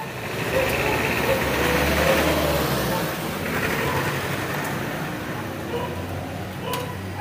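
A motor vehicle's engine running nearby amid street noise, its low hum swelling about a second in and easing off, then rising again near the end.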